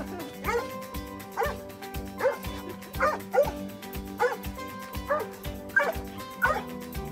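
Bernese Mountain Dog barking over and over, about one bark a second, over background music.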